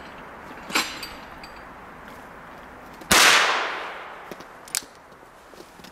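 A single shot from a stainless Ruger Single Six revolver firing standard-velocity .22 LR, about three seconds in: a sharp crack with an echo trailing off over about a second. A quieter sharp click comes just under a second in, and fainter clicks follow the shot.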